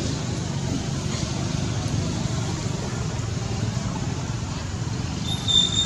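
Steady low rumbling background noise, with a baby monkey giving one brief high-pitched squeal near the end.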